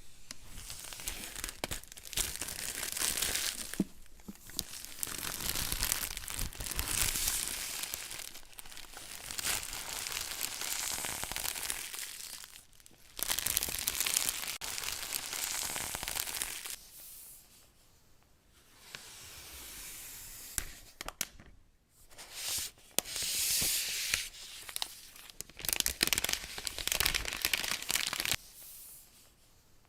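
Product packaging being torn open and crinkled by hand, in several stretches of tearing and rustling separated by short pauses.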